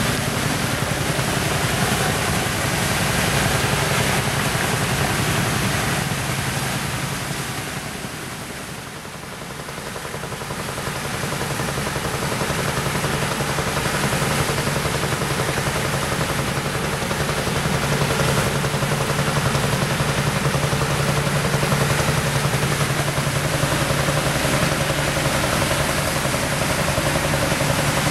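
Water rushing steadily through the gates of an irrigation canal drop structure, with a single-cylinder tractor engine running under it. The sound dips briefly about a third of the way in, and the engine note grows stronger in the second half.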